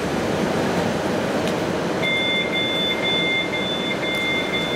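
Koleje Mazowieckie electric multiple unit pulling out of the station, its wheels and running gear making a steady rumble. About two seconds in, a high two-note electronic beep begins and holds steady over it.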